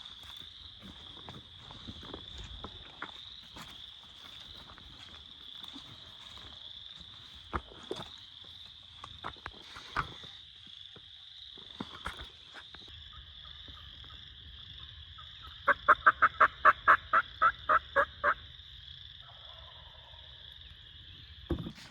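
Wild turkey calling: a rapid series of about a dozen loud notes lasting under three seconds, about three-quarters of the way in. It sits over a steady high-pitched trill that runs in the background, with a few light clicks.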